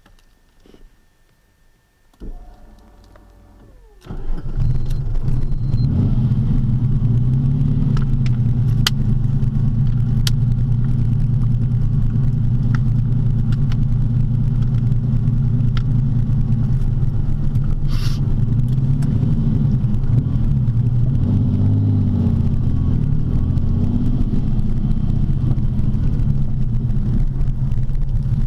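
TVR T350's Speed Six straight-six engine being started: the starter cranks for about two seconds, the engine catches about four seconds in and then runs steadily.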